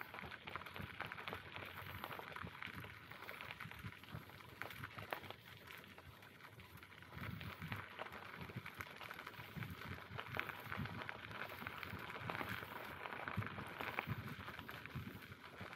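Bicycle rolling along a rough forest track: the tyres crackle over the ground, with frequent small rattles and knocks from the bike.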